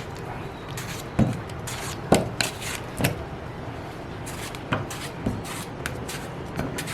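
Knife chopping tomatoes coarsely on a cutting board: irregular knocks of the blade hitting the board, about one or two a second.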